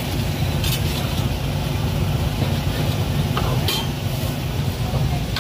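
Night market background: a steady low rumble with indistinct voices and a few brief sharp clinks.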